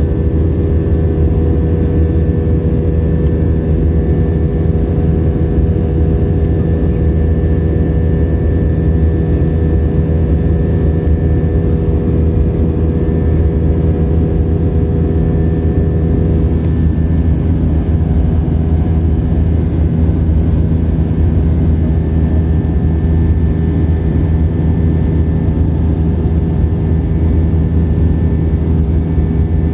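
Steady engine and airflow drone inside a jet airliner's cabin after takeoff: a heavy low rumble with a few steady tones on top.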